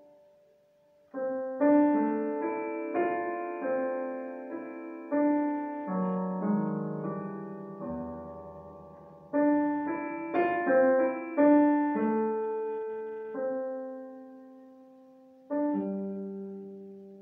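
Digital piano improvisation: after a quiet first second, chords and single notes are struck in loose phrases, each ringing and fading, with a deep bass note about halfway through. Near the end a chord is struck and left to die away.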